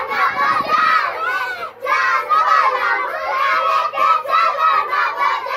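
A group of children shouting and chattering together, many high voices overlapping, with a brief lull a little under two seconds in.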